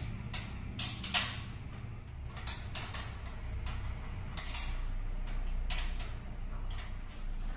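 Spanner working the axle nuts of a bicycle's rear wheel as it is tightened back into the frame: irregular metal clicks and creaks.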